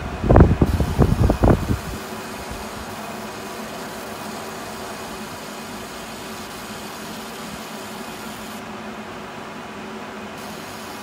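Steady mechanical fan hum from a laser engraving setup, with a few faint steady tones in it. A cluster of loud, irregular low thumps fills the first two seconds.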